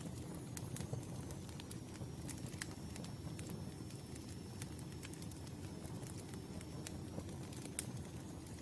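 Campfire burning with a steady low rumble and irregular sharp crackles and pops of the wood, thinning out for a few seconds in the middle.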